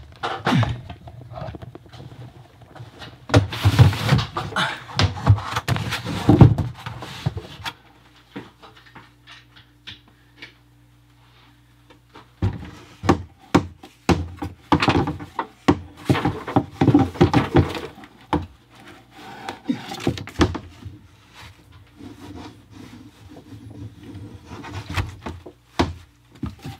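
Handling noise on a plastic snake rack: irregular knocks, taps and rubbing close to the microphone. The noise drops away for a few seconds around the middle, leaving a low steady hum, then the knocking and rubbing start again.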